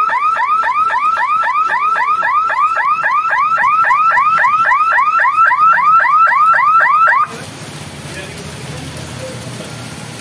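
Electronic warning hooter of a railway level-crossing lifting barrier, sounding while the boom rises: a rapid string of rising chirps, about four a second, that cuts off suddenly about seven seconds in. After it, steady heavy rain and the traffic starting across.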